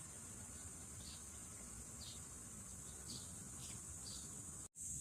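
Steady high-pitched insect chorus, like crickets, with short faint chirps about once a second over it. The sound cuts out for an instant near the end.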